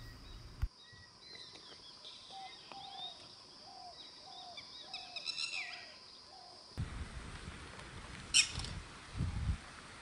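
Red-wattled lapwing calls among other bird notes: a run of soft, evenly spaced low notes about two a second, with higher chirping calls over them. Near 7 s the sound changes to a low rumbling, with one sharp, loud call about a second and a half later and a couple of low thumps after it.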